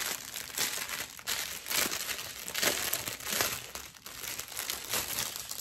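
Clear plastic bag crinkling in irregular rustles as it is handled and opened, holding small packets of diamond-painting drills.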